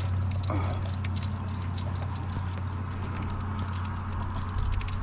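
Fishing reel clicking irregularly, small rapid ticks of the reel as line is worked, over a steady low hum.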